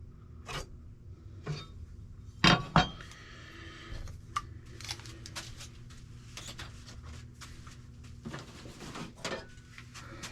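Tools and objects being handled and set down on a workbench: scattered knocks and clinks, with two loud knocks close together about two and a half seconds in.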